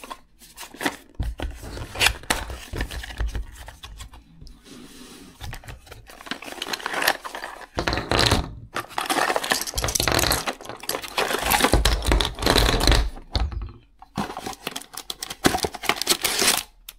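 Small cardboard box of camera accessories being opened and emptied by hand: rustling and crinkling of packaging, with scrapes and small plastic clicks in irregular bursts.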